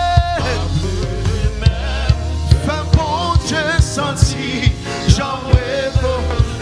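Live gospel worship music: a man sings wavering vocal runs over a band, with a steady drum-kit beat about two hits a second and a bass line underneath.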